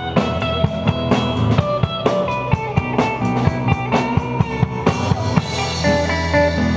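Live rock band playing: electric and acoustic guitars, bass guitar and a drum kit keeping a steady beat, with cymbals washing louder over the last couple of seconds.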